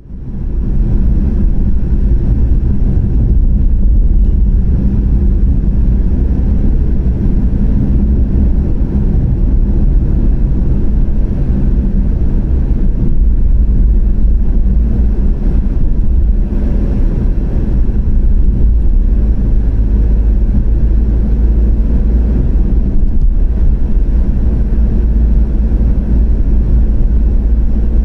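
A car driving at steady speed: a constant low rumble of engine and road noise with no changes.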